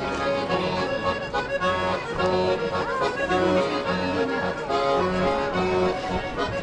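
Accordion playing a traditional Sardinian dance tune for a ring dance, with held melody notes over a steady, regularly repeating bass.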